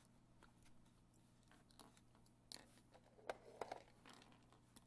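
Faint handling noises: a few small clicks and rustles, mostly in the second half, over near silence.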